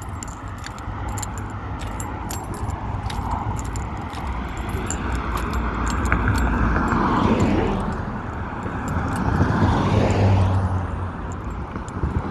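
Road traffic passing: cars going by, with the tyre and engine noise swelling about six seconds in and again about ten seconds in over a steady low rumble. Light clicks and jingles run through it.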